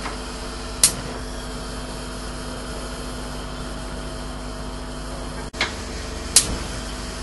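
Sharp clicks from a gas cooker's control knobs being turned: one about a second in and two more near the end, the last the loudest, over a steady hum.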